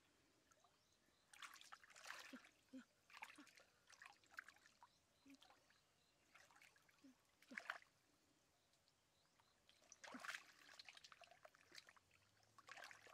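Faint, irregular sloshing and splashing of hands groping through shallow muddy water for fish, with the clearest splashes about seven and a half and ten seconds in.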